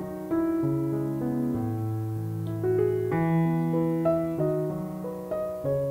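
Background solo piano music: slow, calm notes and chords, a new one about every half second to a second.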